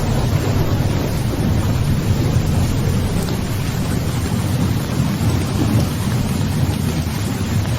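Thunderstorm: steady rain with a low, continuous rumble of thunder underneath.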